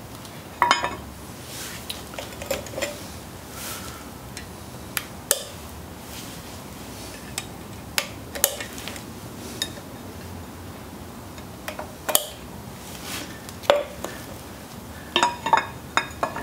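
Scattered sharp metallic clinks and knocks of hand work on a bare Ford 2.3L overhead-cam cylinder head: a wrench on the camshaft pulley, an oil can and the parts on the head being handled, with a quick run of clinks near the end.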